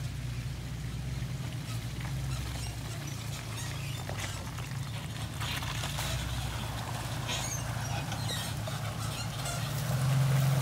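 Off-road 4x4's engine running low and steady at trail speed, with scattered light clicks over it, getting louder near the end.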